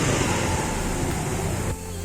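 Steady road traffic and vehicle noise with a low hum, dropping in level shortly before the end.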